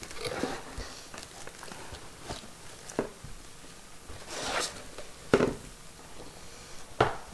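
Cardboard box being handled and a speaker in a foam wrap slid out of it: rustling and scraping of cardboard and packing foam, with a few sharp knocks, the loudest about five seconds in.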